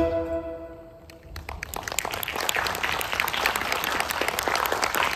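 The final chord of a ukulele duet ringing out and fading away, then audience applause that starts about a second and a half in and keeps on.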